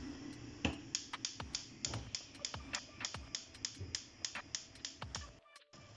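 Spark igniter of a gas hob clicking rapidly, about four clicks a second, while the burner is being lit.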